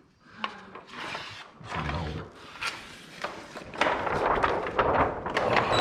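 Handling noise from a sheet of window tint film: irregular clicks and crinkling rustle, growing denser and louder from about four seconds in.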